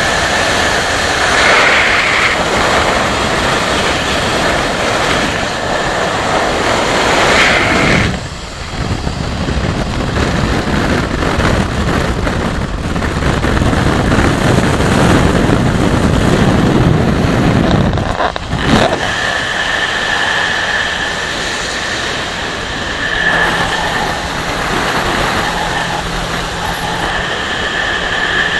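Wind rushing over the microphone with engine and tyre noise from a Kawasaki Versys motorcycle riding at road speed, with a steady high whine in parts. The sound changes abruptly about eight seconds and again about eighteen seconds in.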